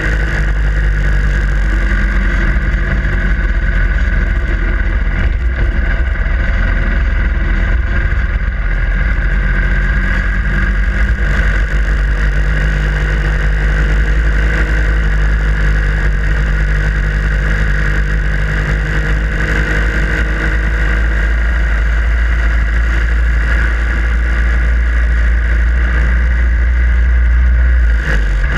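Harley-Davidson Sportster Iron 883's air-cooled V-twin engine running steadily under way, with a heavy low rumble that dips briefly near the end.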